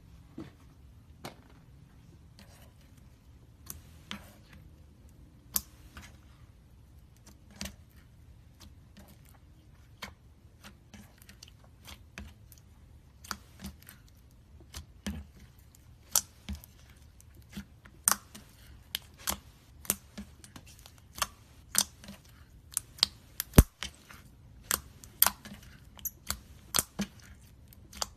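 Slime being squeezed and poked by hand, giving sharp little clicks and pops as air pockets burst. They are sparse at first and come faster and louder in the second half.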